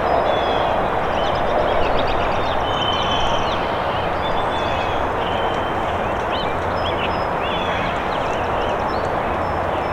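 Distant GE ES44AC diesel locomotive of a slow-moving freight train, a steady low drone under a constant rumbling hiss. Many short bird chirps and whistles sound over it.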